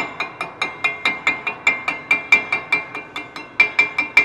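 Chipping hammer picking slag off a fresh weld bead on a cast iron brake rotor: quick, even strikes at about five a second, each with a bright metallic ring. The slag is being chipped away after being left to cool on its own.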